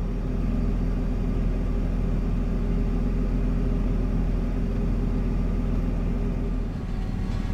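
A vehicle engine running steadily, an even low hum.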